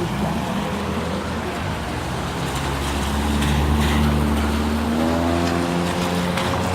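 A motor vehicle running close by on the street, a steady low engine drone whose pitch rises about five seconds in as it speeds up, over a hiss of tyres and wind.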